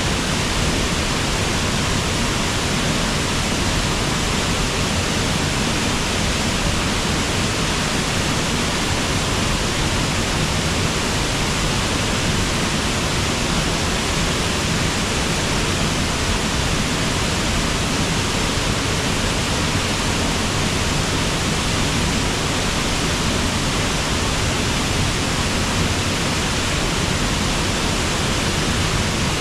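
Waterfall on a river: a steady, unbroken rush of falling water.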